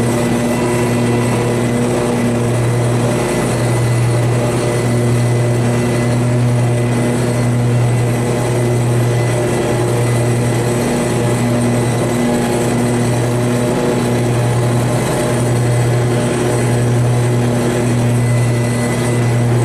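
Grasshopper riding lawn mower's engine running steadily under way with a strong low hum.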